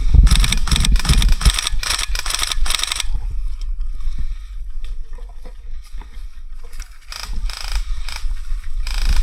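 Rustling and scraping close to the microphone, with a low rumble of wind or handling. A quick run of rustles comes in the first three seconds, then softer, scattered ones.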